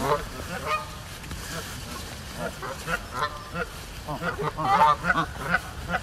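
Geese honking, a run of short calls one after another, busiest and loudest about four to five seconds in.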